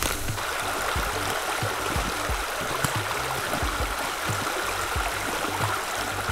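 Shallow rocky creek running over stones, a steady rushing of water, with scattered soft low thumps underneath.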